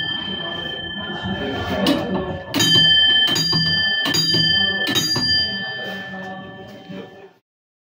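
Ceiling-mounted signal gong of an old SN1 tram, struck again and again by a pulled cord, each clang ringing on. This is the old way for passengers to signal the driver for a request stop. The ringing fades and stops about seven seconds in.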